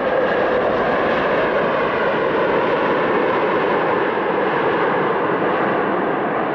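Airliner jet engines running loud and steady, heard from inside the passenger cabin as an even roar, with a faint hum fading out in the first second.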